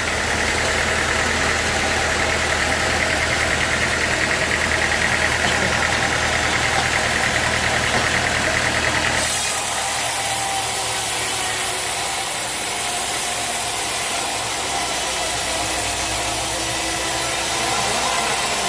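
Sawmill machinery running steadily with an engine-like hum. About nine seconds in, the sound changes abruptly to a different steady machine noise.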